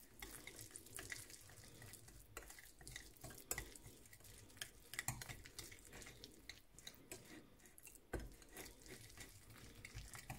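Softened-butter marinade with chopped garlic, curry leaves, chilli powder and lime juice being stirred and mashed into a paste: faint, irregular soft scrapes and small clicks.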